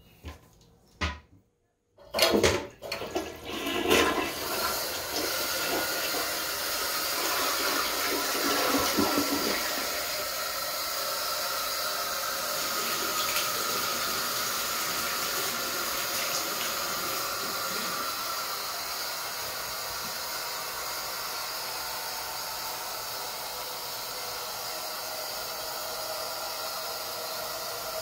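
A household toilet flushing: a couple of small clicks, then a sudden loud rush of water about two seconds in that surges for a couple of seconds and goes over into a long steady hiss of running water, slowly settling a little quieter.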